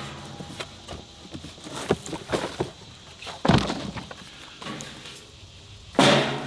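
Clunks and knocks of the fire pit's metal parts being handled, with one heavy thump about halfway through.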